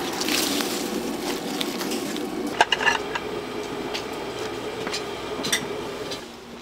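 Restaurant kitchen sounds: a steady background hum with scattered knocks and clatter, and a short ringing clink of dishware about two and a half seconds in.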